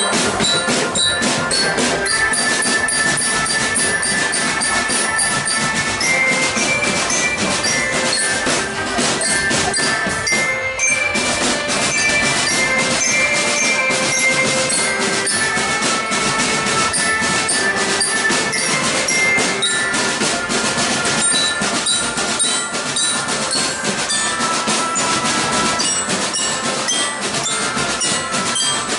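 Marching drum band playing: snare and bass drums beating a dense, driving rhythm under a bright glockenspiel melody.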